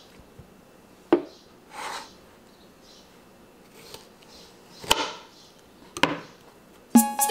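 Small kitchen knife slicing a soft, ripe jackfruit bulb on a wooden chopping board: a few separate knocks and taps of blade and fruit on the wood, with a soft rubbing swish between them. Music with a rhythmic beat starts just before the end.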